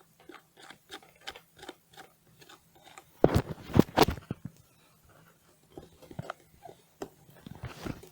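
Plastic desk-fan parts being handled and fitted together: a string of small clicks and taps, with a louder clatter of knocks about three to four seconds in.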